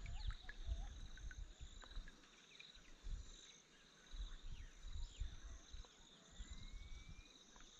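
Faint outdoor insect chorus, high pulsing trills of crickets or cicadas, with scattered short bird chirps and one longer rising whistle late on. Intermittent faint low thumps run underneath.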